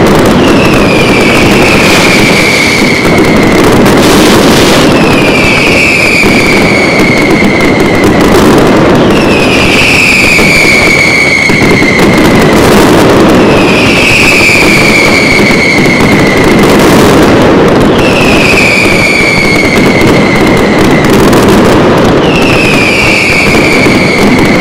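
Fireworks display going off in a dense, continuous barrage. Over it, a high falling whistle recurs about every four seconds, each one lasting about two seconds.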